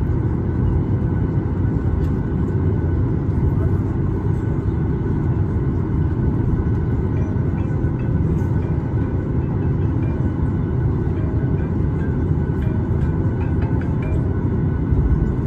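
Inside the cabin of a Boeing 737-800 taxiing after landing: a steady low rumble from the CFM56-7B engines at idle and the rolling airframe, with a faint steady hum of tones above it.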